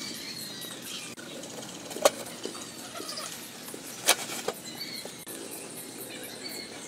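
Wood fire burning under a cooking pot, a steady soft hiss with faint crackle, and two sharp knocks, about two and four seconds in, the second as the aluminium lid is set on the pot. Short high bird chirps now and then.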